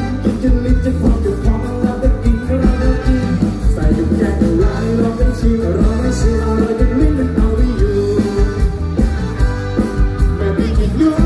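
A male singer singing into a handheld microphone over amplified backing music with a steady beat, heard through the stage PA speakers.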